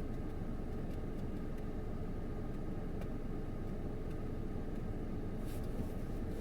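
Steady low rumbling background noise, with a few faint clicks and a brief soft hiss about five and a half seconds in.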